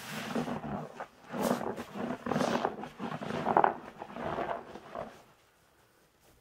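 Wet grout sponges soaked in thick soap suds, squeezed and wrung in gloved hands: a run of crunchy, squelching squeezes that stops about five seconds in.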